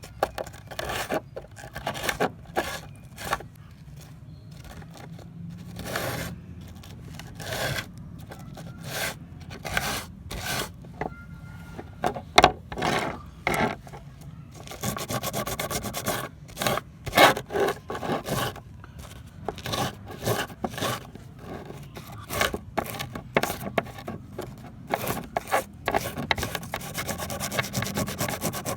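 Repeated hand-worked scraping strokes, as in abrasive work on old pliers, at an uneven pace with quicker runs around the middle and near the end.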